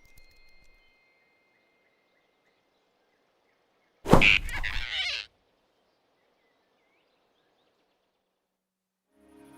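Faint quiet ambience, broken about four seconds in by a single sudden loud sound effect lasting just over a second, swish- or impact-like, then quiet again before music comes in near the end.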